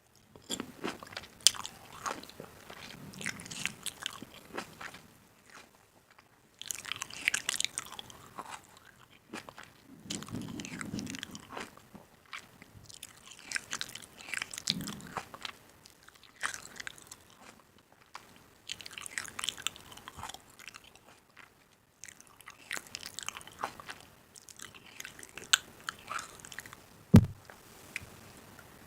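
Crunchy food being bitten and chewed in bursts of crackling crunches with short pauses between them, and one sharp thump near the end.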